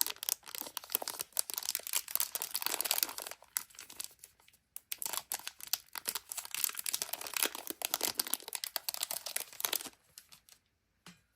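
Blind bag wrapper crinkling and tearing as it is opened, in two long spells with a short break about four and a half seconds in, then a single faint click near the end.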